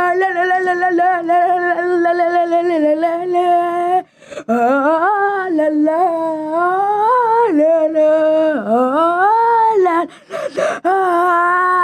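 A single voice singing or humming a tune without words. It opens on a long wavering held note, breaks off about four seconds in, slides up and down through a melody, and settles on a held note again near the end.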